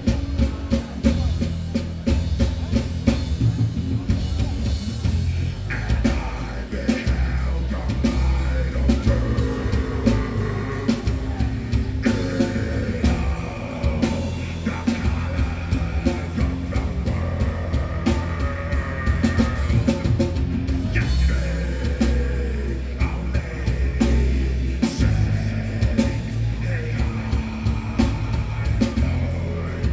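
Heavy metal band playing live: pounding drum kit, distorted electric guitars and bass, with the singer's vocals over them.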